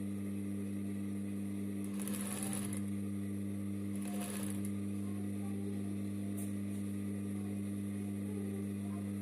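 Gemsy industrial sewing machine running with a steady low electrical hum, with two short rustling stretches about two and four seconds in as the fabric is fed through.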